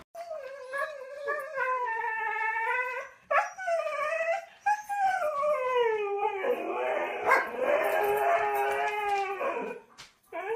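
A dog howling: long drawn-out howls that slide down in pitch, three in a row, the last one longer and rougher.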